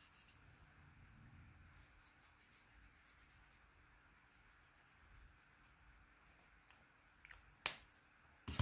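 Faint scratching of an acrylic paint marker's tip rubbing across sketchbook paper as a swatch is laid down, with a sharp click near the end.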